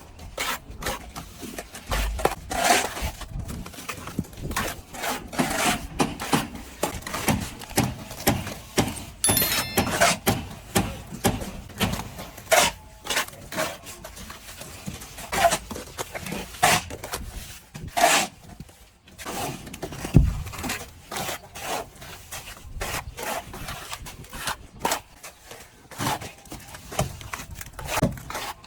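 Plastering trowel scraping and rubbing over a wall in repeated short strokes, roughly one every half second to a second.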